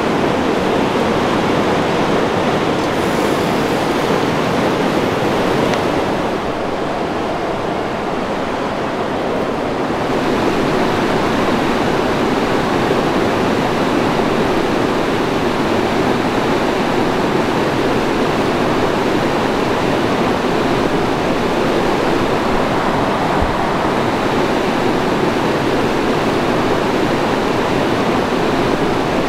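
Steady rush of running water, dipping slightly for a few seconds about six seconds in.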